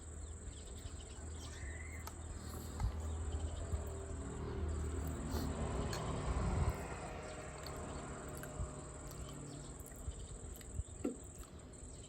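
Insects trilling steadily in the background, one unbroken high-pitched tone, with scattered small clicks and a low rumble close by.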